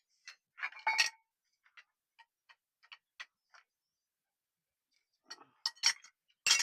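Light metallic clicks and clinks from metal parts and tools being handled on a workbench. First a short cluster, then irregular ticks about three a second, a pause, then louder clinks near the end.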